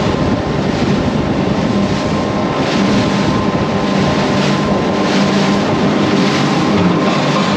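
Powerboat engines running steadily at speed, with wind buffeting the microphone and water rushing past the hull.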